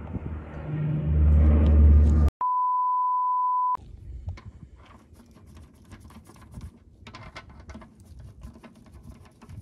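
A low rumble for about two seconds, then a single steady 1 kHz beep lasting about a second and a half that starts and stops abruptly. After it come light, irregular metallic clicks and rattles of a socket being worked on a wheel's lug nuts.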